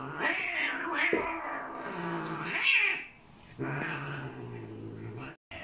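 House cats fighting, a grown cat against a kitten: low drawn-out growls alternate with louder hissy yowling cries, the loudest a little past halfway. The sound cuts off abruptly shortly before the end.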